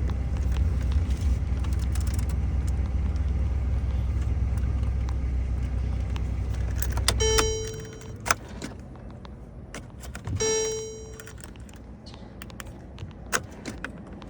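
Car cabin noise of a vehicle driving, a steady low rumble that stops about seven and a half seconds in as the car comes to rest and is switched off. Then a car's electronic warning chime sounds twice, about three seconds apart, with a few clicks and a jingle of keys in between.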